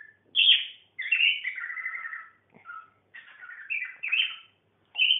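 Small pet parrots in a cage chirping and warbling: a run of short, high calls with brief pauses between them.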